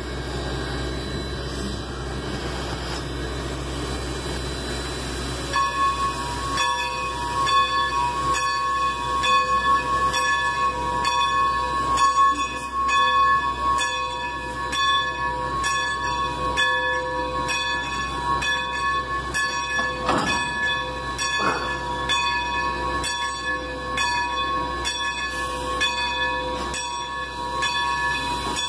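Steam locomotive's bell ringing at a steady pace of roughly once a second, starting about five seconds in, as the engine backs toward the train to couple. A low steady rumble from the locomotive runs underneath.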